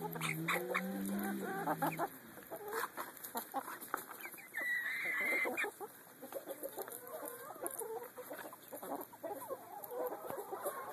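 Domestic hens clucking as they feed together, with a low drawn-out call in the first two seconds and a single high squawk lasting about a second near the middle.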